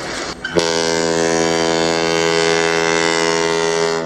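A ship's horn gives one long, steady blast. It starts about half a second in, after a brief rush of noise, and holds one pitch for about three and a half seconds.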